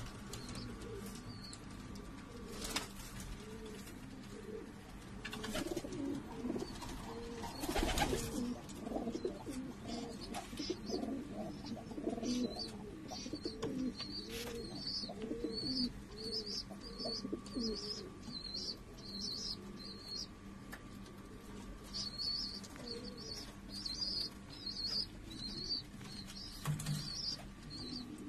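Many domestic pigeons cooing together in a loft, with a few wing flaps. From about ten seconds in, a rapid string of high chirps runs over the cooing.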